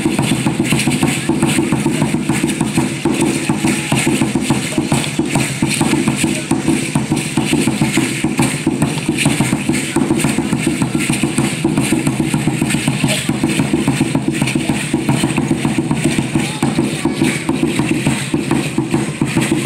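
Aztec (Mexica) dance drumming on a huehuetl, a tall upright hand drum, played in a fast, steady beat.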